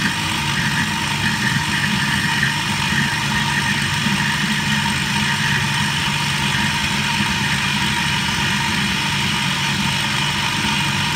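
Countertop blender running at a steady high speed, its motor blending a thick green smoothie in the jug.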